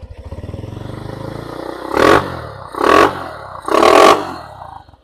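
Honda CB125 single-cylinder four-stroke motorcycle engine idling, then revved in three sharp throttle blips about a second apart, each falling back to idle.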